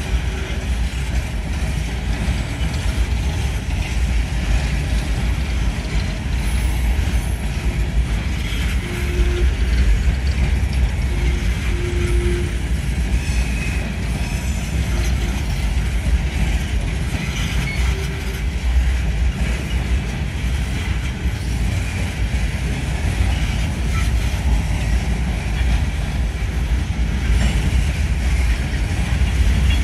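Empty coal hopper cars of a unit train rolling past on the rails: a steady low rumble of wheels on track with occasional clicks.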